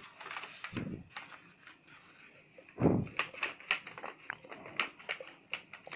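A sheet of colour paper handled and folded by hand on a table: scattered light crackles and taps of the paper, busier in the second half, with a couple of soft thumps.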